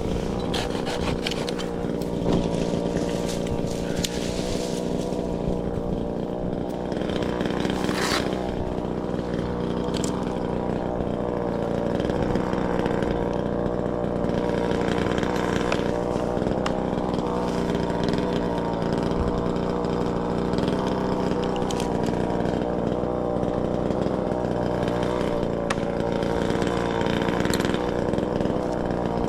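Chainsaw running steadily for the whole stretch, its pitch holding nearly constant, with a few brief knocks.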